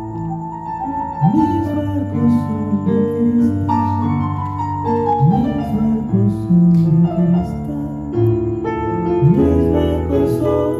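Stage keyboard playing an instrumental passage: held chords with a few low notes that slide up in pitch, and one higher line gliding down around the middle.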